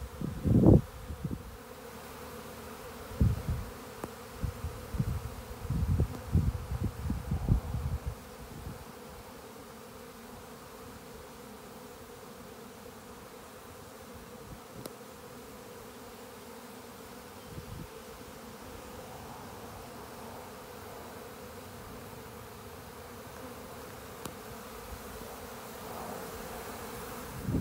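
Honeybee swarm in the air around its hive: a steady hum of thousands of bees in flight. Low rumbling thumps come and go over the first eight seconds.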